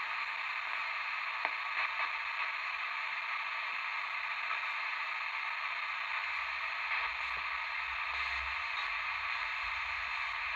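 Sony ICF-2001D receiver's speaker giving out a steady hiss of airband static while it scans with no station found and no aerial up, with a few faint ticks.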